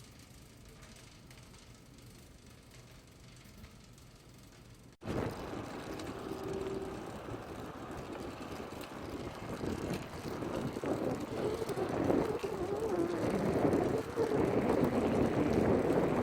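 Faint low background hum for about five seconds, then a sudden cut to a fixed-gear bicycle being ridden: steady tyre rolling noise and wind on the microphone, growing louder as speed builds.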